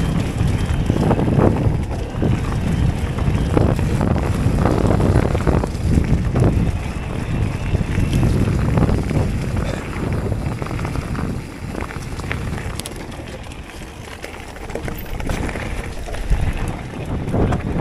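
Electric mountain bike riding down a dirt trail: wind rushing over the action camera's microphone and tyres rumbling over the ground, with frequent knocks and rattles as the bike goes over bumps. It eases for a few seconds past the middle.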